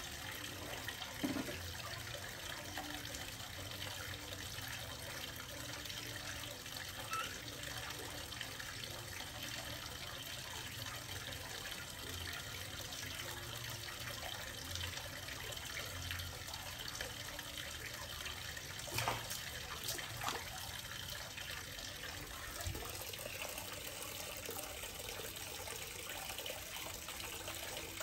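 Water running steadily, like a tap filling a basin or tub. A few short sharp sounds cut through it, one about a second in and a couple about two thirds of the way through.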